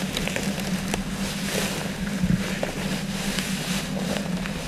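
Wind buffeting the microphone over a steady low hum, with scattered rustling and crunching of dry prairie grass as hunters shift and step through it.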